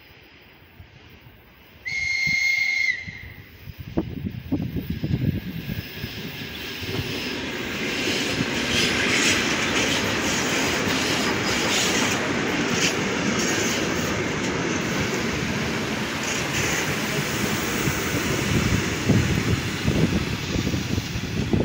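Russian electric multiple-unit commuter train (ER9-type) gives one short, high-pitched whistle about two seconds in, then approaches and passes close by: a growing rumble of wheels on rail that becomes steady and loud, with clicks over rail joints near the end.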